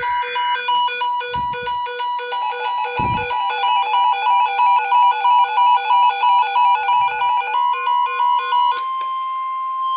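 Emergency alert tones for a severe thunderstorm watch. First come electronic beeps pulsing in a fast repeating pattern. About seven and a half seconds in, they give way to one steady high tone, the weather radio's long alarm tone.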